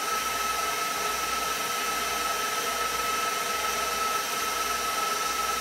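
KitchenAid stand mixer motor running steadily, driving the pasta press attachment as it pushes egg-noodle dough through the rigatoni die. It is an even motor noise with a thin, steady high whine.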